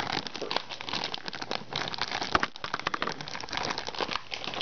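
Clear plastic Happy Meal toy bag crinkling and rustling as it is handled and opened: a dense run of small crackles.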